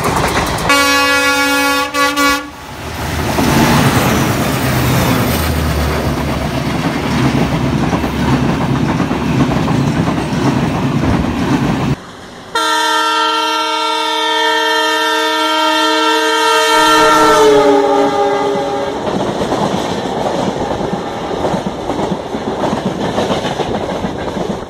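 Indian Railways diesel locomotive horns and running trains. A short multi-tone horn blast comes about a second in, then a train rumbles and clatters past. After a cut, a long multi-tone horn sounds from an oncoming locomotive, its pitch dropping as it passes, followed by the steady clatter of a train running over the rails.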